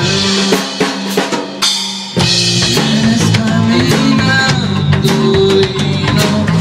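Rock band playing an instrumental passage: drum kit, distorted electric guitars and bass. About one and a half seconds in the low end drops out for half a second, then the full band comes back in.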